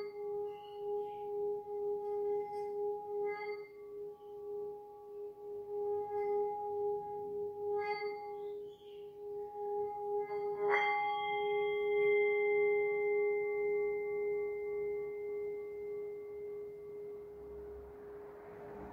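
Handheld metal singing bowl sung by a mallet rubbing its rim: a steady ringing tone with faint scrapes of the mallet. About eleven seconds in, the bowl is struck once and rings on with several tones, slowly fading.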